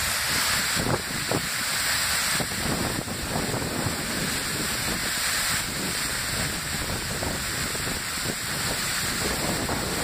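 Waterfall pouring into a pool: a steady rush of falling water, unbroken throughout.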